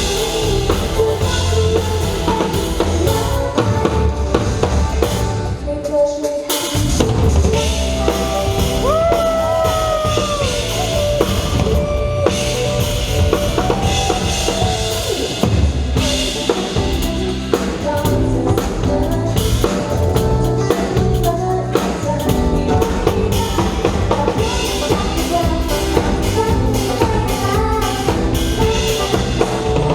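Live pop band music with a prominent drum kit: a steady kick-and-snare beat under keys and bass. The low end drops out briefly about six seconds in.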